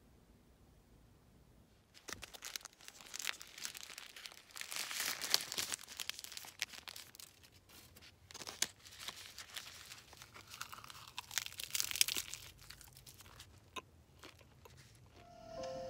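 Dry material being crinkled, crunched and torn by hand in irregular bursts, starting about two seconds in.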